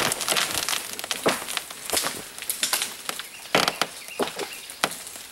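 Rotten tree trunk cracking and splintering at the hinge of a notch-and-back-cut as the wedge opens the cut, a run of irregular sharp cracks and snaps, the loudest about two seconds and three and a half seconds in: the wood fibres giving way just before the tree falls.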